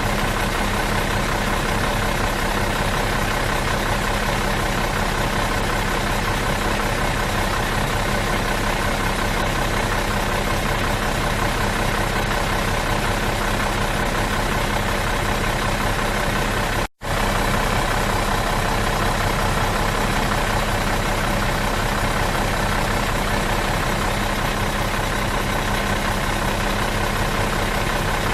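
Stationary bus engine idling steadily, with a momentary cut to silence about seventeen seconds in.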